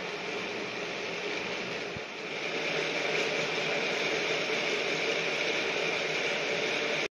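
Lynton and Lynmouth water-powered funicular carriage running up its rails on the cliff railway: a steady mechanical running noise from wheels, rails and cable gear. It grows louder about two seconds in.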